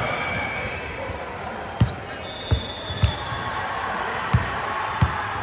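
A basketball being dribbled on an indoor court: five sharp bounces at uneven spacing, with short high sneaker squeaks and a steady hall murmur behind.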